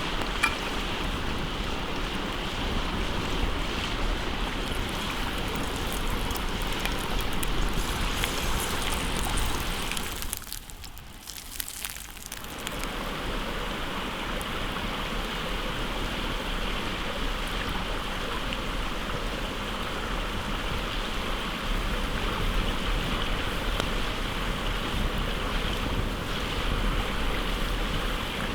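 Hot oil sizzling steadily with fine crackling as breaded chicken fries, with a brief dip in level about ten seconds in.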